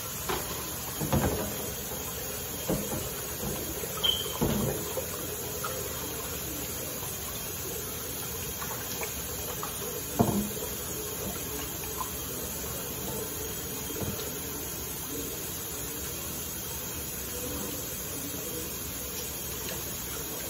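Hand dish-washing at a kitchen sink: scattered clinks and knocks of utensils and a pan being handled, over a steady hiss. The loudest knock comes about ten seconds in.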